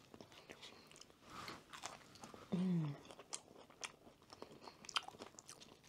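Chewing and crunching of a fried potato wedge, with soft crisp clicks throughout. About two and a half seconds in, a short hum from the eater that falls in pitch.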